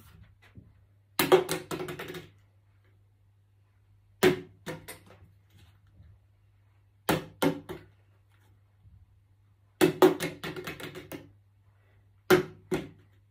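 A plastic water bottle is flipped and lands on a wooden table five times, about every two and a half to three seconds. Each landing is a quick clatter of knocks as the bottle hits and bounces.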